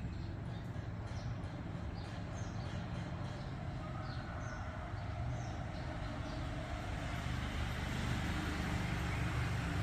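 Steady traffic rumble with many short, high bird chirps, most of them in the first half.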